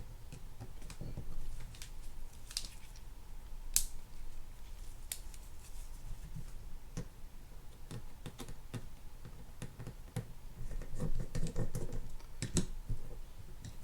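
Small parts of a spinning reel's anti-reverse roller clutch being taken apart by hand: scattered light clicks and scrapes of metal and plastic pieces, with a short spell of busier handling about eleven seconds in.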